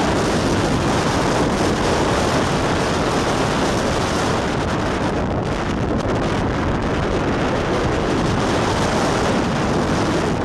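Very strong wind buffeting the camera's microphone: a loud, steady rush of noise.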